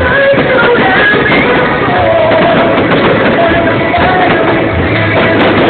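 Live music: a male singer holding long sung notes over loud accompaniment, recorded close to full level from the audience.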